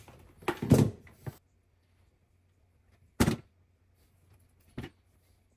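Handling noise and a few sharp clicks from preparing the end of a Cat 6 network cable with a hand stripping tool. The loudest click comes a little over three seconds in, and a softer one comes near the end.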